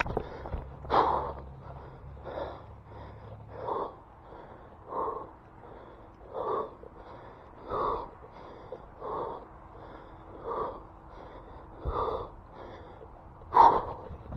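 A person breathing hard, about ten heavy breaths in a steady rhythm of roughly one every second and a half, recovering from sprinting.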